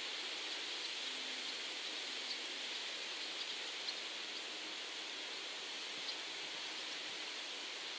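Steady outdoor hiss, like wind or rustling foliage, with a few faint high ticks or chirps. No engine rumble stands out.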